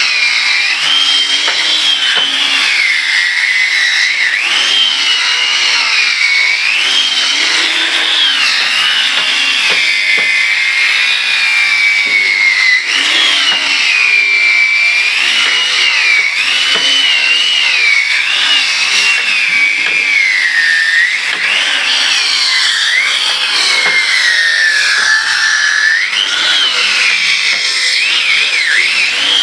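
Electric power tool working wood: a high motor whine that rises and falls in pitch as the load on the cutter changes, over a steady rasp of cutting.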